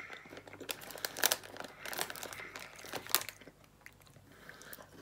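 Plastic wrapper of a Fudge Stripes cookie packet crinkling as it is handled and a cookie is taken out, in irregular sharp crackles that are loudest in the first three seconds and fade after that.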